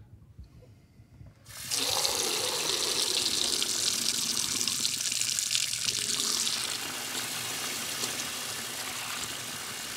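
Water from a mixer tap running into a ceramic sink, switched on about a second and a half in and then a steady full stream, easing a little about two-thirds of the way through. It is the first test of the water system fed by a newly installed DAB Esybox Mini 3 pressure pump.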